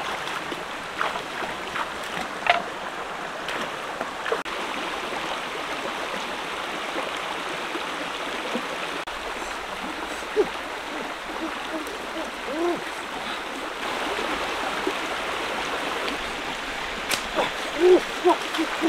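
Shallow stream running steadily over rocks. Short repeated calls that rise and fall in pitch, about two a second, join in near the end.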